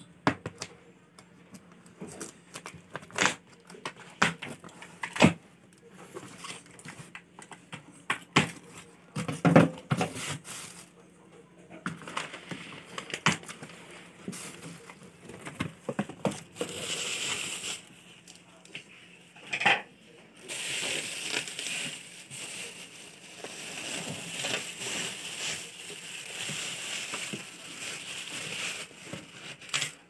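Scissors cutting packing tape on a cardboard box, with clicks, knocks and scrapes of the cardboard. From about halfway, plastic wrapping crinkles steadily as it is handled and pulled back.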